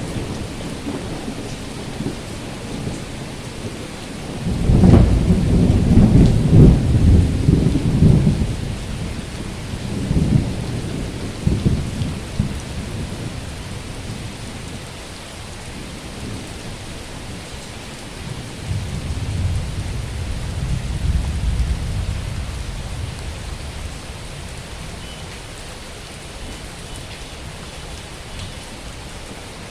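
Heavy tropical rain falling steadily, with rolling thunder rumbles. The loudest rumble starts about four and a half seconds in and lasts a few seconds, and weaker rumbles come around ten and twenty seconds in.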